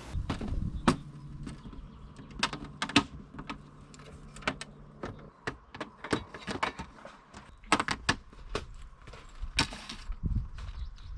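Irregular clicks, knocks and light clatter of objects being handled, with a low steady hum that stops about halfway through.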